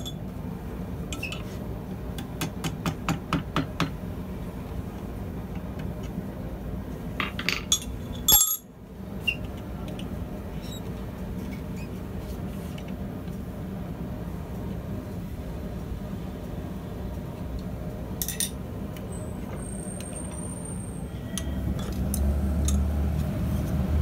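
Metal-on-metal clinks and taps as hand tools work a red-hot 6 mm mild steel rod held in a vise, including a quick run of about six taps, over a steady low hum.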